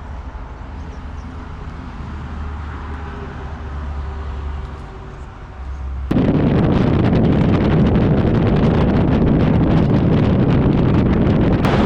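A low, steady rumble, then about six seconds in an abrupt switch to loud wind noise buffeting the microphone on a moving Harley-Davidson Street Glide motorcycle.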